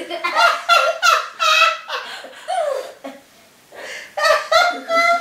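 Hearty, high-pitched human laughter in repeated bursts, with a short pause about three seconds in.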